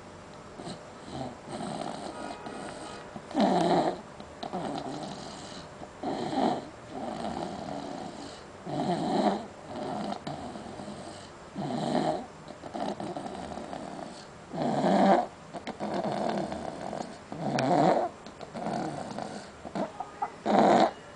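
Snoring in a steady rhythm: a loud snore about every three seconds, each followed by a softer breath.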